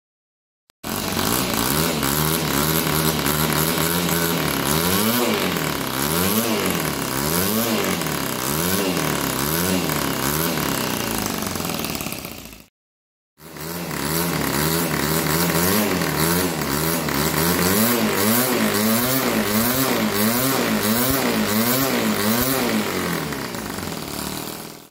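Homemade 6.5 cc single-cylinder four-stroke glow-plug model engine with a rotary valve, running and being revved up and down over and over, about once a second, with quick throttle response. The sound drops out briefly about halfway, then the revving goes on.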